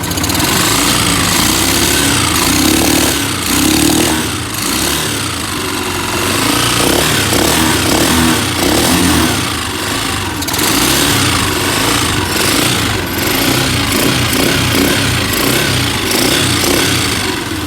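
Honda TMX 125 single-cylinder four-stroke motorcycle engine running during a tune-up, its speed rising and falling again and again as the throttle is worked.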